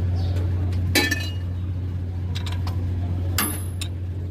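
Metal hand tools clinking and knocking against metal, a sharp clink about a second in and a ringing one past the three-second mark, over a steady low hum.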